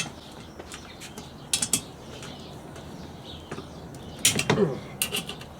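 Hand tools clinking on metal while undoing exhaust bolts, in a few short bursts of clicks and knocks.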